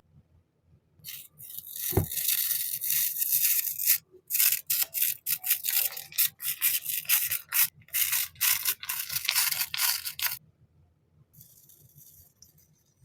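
Packaging being handled and opened: a continuous crinkly rubbing rustle with a soft knock about two seconds in, then a run of quick, short rustling strokes that stop near the end.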